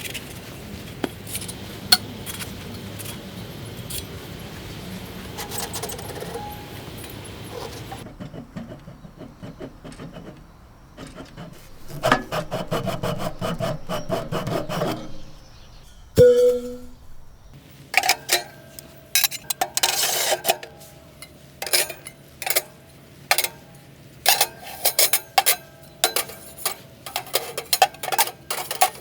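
Rubbing and scraping, then a run of sharp clinks and clatters, some with a brief ringing tone, from hard objects being handled.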